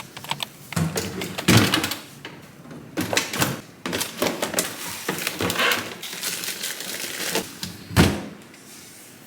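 Groceries being handled and put away: packages and containers knocked and set down in irregular short knocks, with a heavier door-like thump about eight seconds in.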